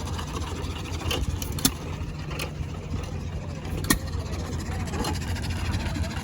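An engine running steadily, a low rumble, with a few short sharp clicks over it.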